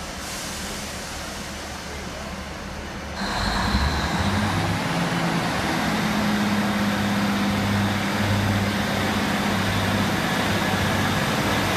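Class 153 diesel multiple unit drawing into the platform. Its underfloor Cummins diesel engine runs with a steady low hum that gets clearly louder about three seconds in as the train nears.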